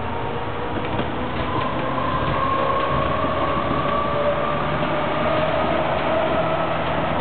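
Hamburg Hochbahn DT3 U-Bahn train running on the track, heard from inside its rear driver's cab, with a motor whine rising slowly in pitch.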